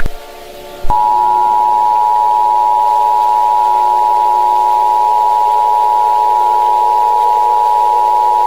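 Emergency Alert System attention signal: the two-tone alert (853 and 960 Hz together), starting about a second in and holding steady and loud, over a low steady drone.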